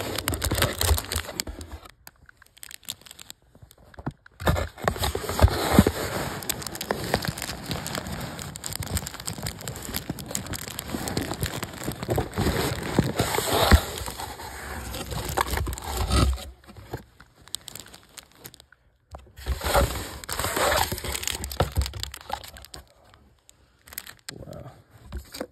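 Crinkling and rustling of a paper towel wrapping and a plastic specimen bag being handled right against the phone, with fingers rubbing over the microphone. It comes in stretches with a couple of short pauses.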